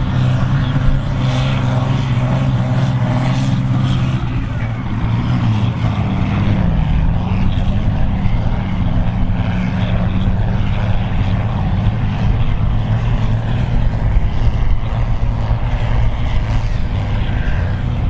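John Deere tractor's six-cylinder diesel engine working hard under load while pulling a plough at speed, its pitch sagging about six seconds in and then holding steady.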